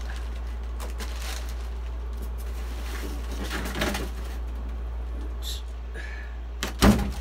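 Handling of a polystyrene foam shipping box and a plastic bag: rustling, a couple of short squeaks, then one loud thump near the end as the box is knocked. A steady low hum runs underneath.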